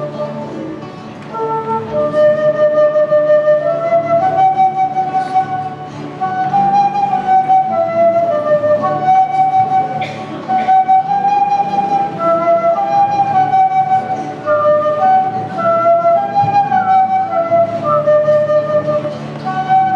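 Instrumental church music: a slow melody of held notes, in a wind-instrument voice, over a steady low sustained accompaniment, moving in phrases with brief breaths between them.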